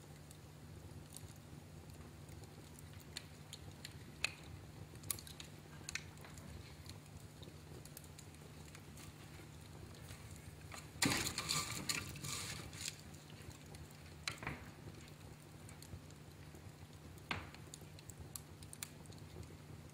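Wood fire in a fireplace crackling, with scattered sharp pops and a dense burst of crackling about eleven seconds in, over a low steady hum.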